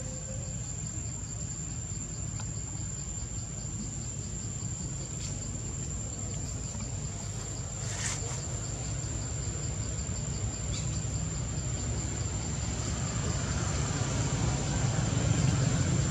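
Insects droning on one steady high-pitched tone, with a regular pulsing beneath it. A low rumble grows louder over the last few seconds.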